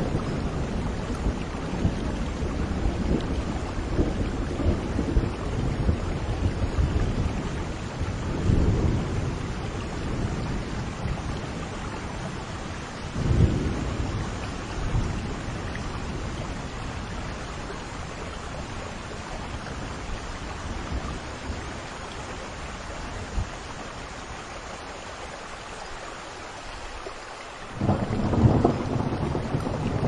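Steady rain with rolling thunder. Low rumbles come and go in the first half, with a louder peal about 13 seconds in. The thunder then dies away, leaving mostly rain, until a loud new rumble breaks in near the end.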